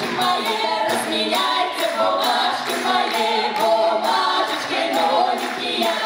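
A folk ensemble's massed voices singing a Russian Cossack folk song together over a steady beat.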